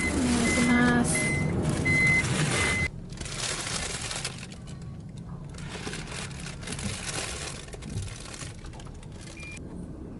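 A high electronic beep repeating about twice a second over other sound, which cuts off abruptly about three seconds in. Quieter background noise follows.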